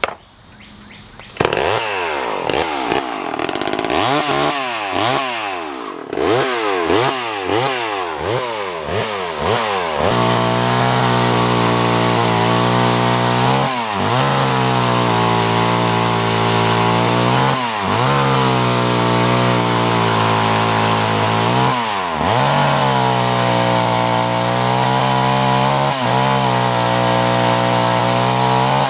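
Vintage Poulan Super 25DA two-stroke chainsaw engine. It comes on about a second and a half in and is revved up and down quickly for several seconds. It then runs at high speed with a brief drop in revs about every four seconds.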